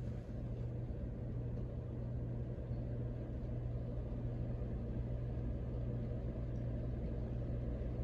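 Small three-blade ceiling fan running steadily: a constant low motor hum with a faint, even rush of moving air.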